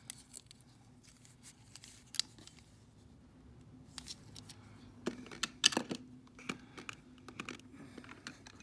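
Scattered light clicks and taps of a small die-cast toy funny car being handled and turned over in the fingers, its metal and plastic parts knocking together. The clicks come thicker a little past halfway, with the sharpest one then.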